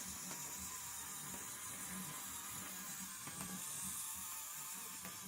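Small electric motor of a 3D-printed model CAT excavator whirring steadily, with a couple of faint ticks about three seconds in.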